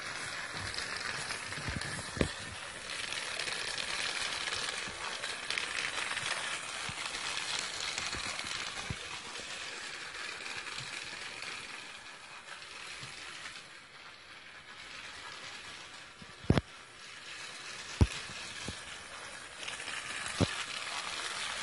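Battery-powered Trackmaster Charlie toy train running along its plastic track with a steady, hissy running noise. A few sharp clicks break in, the loudest two about a second and a half apart some three-quarters of the way through.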